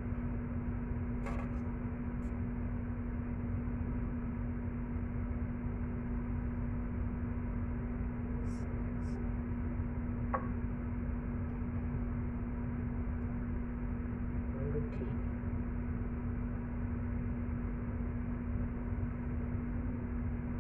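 A steady machine hum with one constant pitch, of unknown source. A few faint clicks and taps come from a stuffed bell pepper and a china plate being handled.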